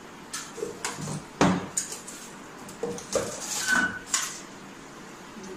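Plastic food containers handled on a kitchen counter: a string of knocks and clicks, the loudest about a second and a half in, with a brief high clink near the end.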